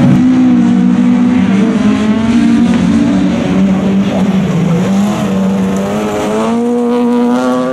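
Rallycross car engines running hard at high revs as the cars lap the circuit, with one engine rising in pitch near the end as it accelerates.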